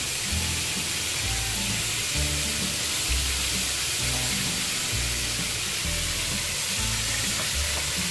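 Stuffed squid frying in oil in a pan: a steady sizzle. Background music with a repeating bass line plays underneath.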